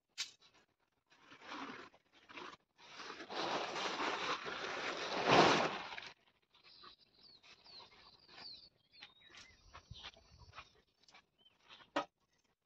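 Tent fabric rustling and flapping as the tent is pulled from its bag and shaken out, loudest about five seconds in. Quieter rustling follows as it is laid down, with a sharp click near the end.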